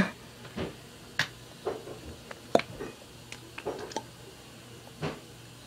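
Handling noise: a few scattered soft clicks and taps, irregular, over a faint steady hum.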